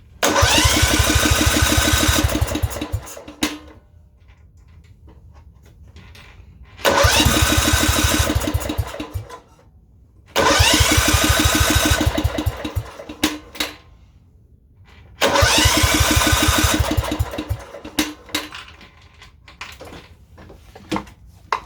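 Kohler Command 13 single-cylinder engine turned over by its electric starter four times, each try a few seconds of cranking that spins up and then dies away without the engine catching and running.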